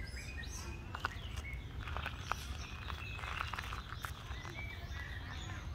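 Outdoor forest ambience: scattered short chirps and a few sharp clicks over a steady low rumble.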